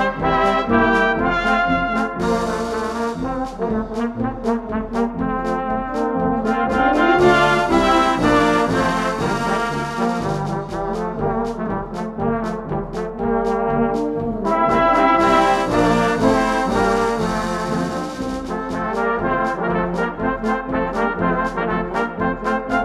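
Instrumental music: a brass-led arrangement playing the melody and chords over a steady bass line and an even percussion beat.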